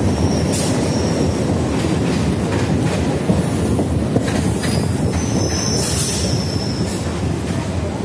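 Electric suburban local train (EMU) running at speed, heard from its open doorway: a loud, steady rumble of wheels on rail. Brief high-pitched wheel squeals come about half a second in and again, longer, around five to six seconds in, with two sharp knocks near the middle.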